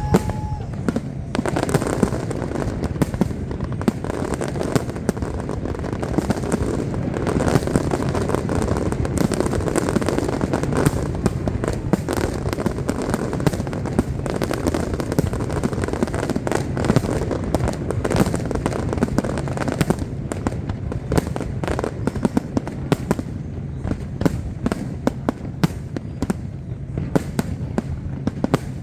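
Aerial fireworks going off in a dense, continuous barrage: many sharp cracks and bangs over a constant rumbling crackle, with no break.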